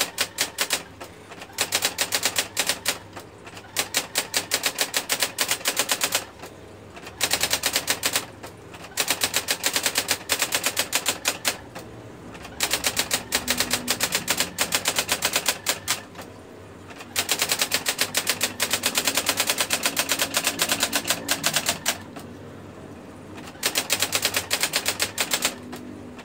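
Brother GX-6750 electronic daisywheel typewriter printing in six rapid runs of strikes, with short pauses between the runs, as it types out a test after its ribbon has been fitted.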